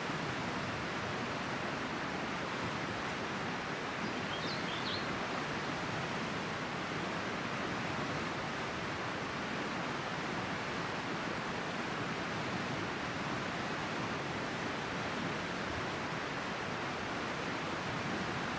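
River water running with a steady, even rush. A brief high chirp comes about four and a half seconds in.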